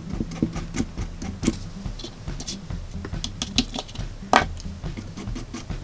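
Light irregular clicks and scratches as a small flux brush dabs on a thin metal piece held in an alligator clip, with one sharper tap past the middle, over a low steady hum.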